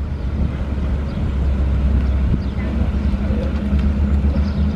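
First-generation Ford Mustang's engine running steadily as the car drives slowly past, a loud, low engine note.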